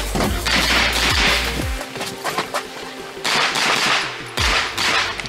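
Rapid strings of pistol-caliber carbine shots from a Sig Sauer MPX, fired in quick succession, over electronic background music.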